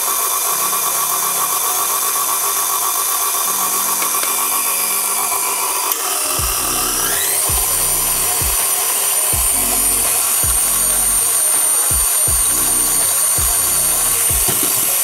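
KitchenAid stand mixer's motor running steadily as it kneads dough. About six to seven seconds in, its whine rises in pitch as the speed is turned up, and from then on there are repeated low thumps as the dough mass knocks around the steel bowl.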